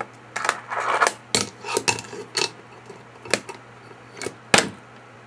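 Fingerboard tricks on a wooden box and desk: a series of sharp clacks as the little deck pops and lands, with a short scraping sound about a second in and the loudest clack near the end.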